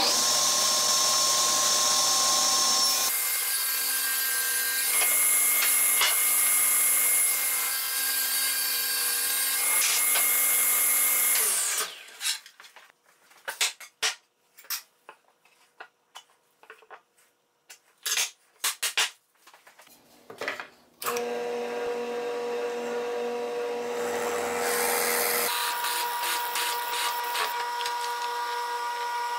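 A table saw runs and cuts plywood, its sound changing about three seconds in. After about eleven seconds the saw stops and scattered knocks and clicks follow as the wood pieces are handled. From about twenty-one seconds a drill press runs steadily, drilling into the plywood strip.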